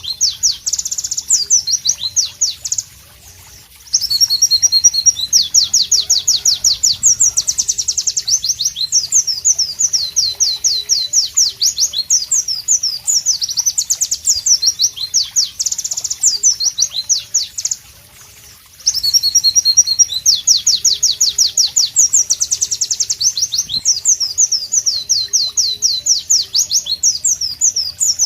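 White-eye (pleci) singing long, loud, fast phrases of high sweeping notes, with two brief pauses of about a second, about three seconds in and again near the middle.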